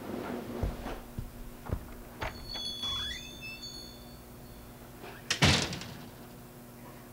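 A few light knocks and thumps, a brief high squeak with a short rising glide, then a single louder thump about five and a half seconds in.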